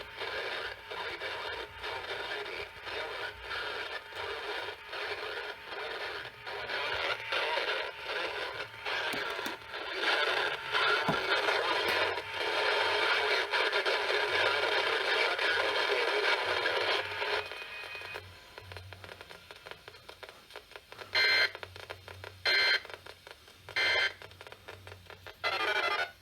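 Radio static, a choppy hiss that drops away about two-thirds of the way through. Near the end come four short, loud bursts of EAS digital data tones, a little over a second apart.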